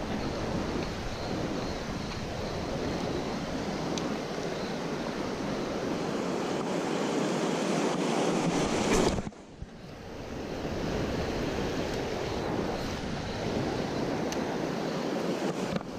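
Rushing river water with wind buffeting the microphone, a steady rush that drops away suddenly about nine seconds in and swells back over the next couple of seconds.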